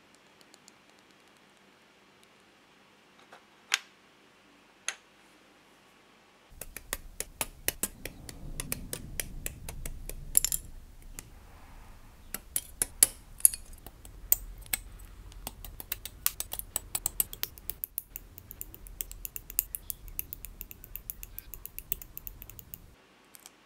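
Small hard plastic model-kit parts clicking as they are pressed and snapped together, with two separate sharp clicks at first. From about six seconds in there is a long run of quick clicks and ticks over a low rumble as parts are handled and cut from the plastic runner with hobby nippers. The clicks come fastest near the end.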